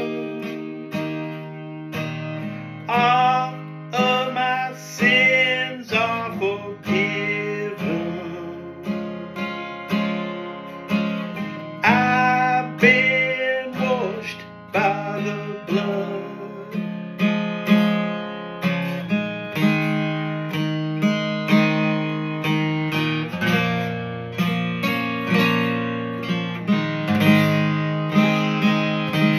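Cutaway acoustic guitar strummed in a steady rhythm, an instrumental stretch of a slow worship song.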